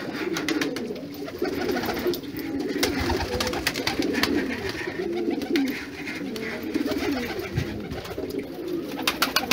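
Domestic pigeons cooing, many overlapping coos that run without a break, with scattered sharp clicks, a cluster of them near the end.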